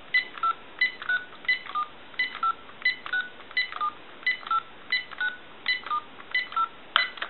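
Touch-tone (DTMF) dialing on a GE DECT 6.0 cordless telephone: a long run of short two-tone beeps, about three a second, each digit a different pair of pitches, dialed as a post-repair test.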